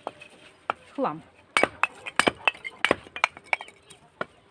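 A quick run of about a dozen sharp clinks and knocks, starting about a second and a half in and fading by the end.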